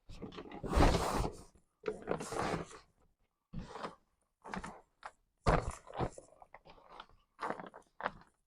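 Rustling, crinkling and light bumps from a thermal insulated inner bag being handled and fitted into a corrugated cardboard delivery box, in short irregular bursts.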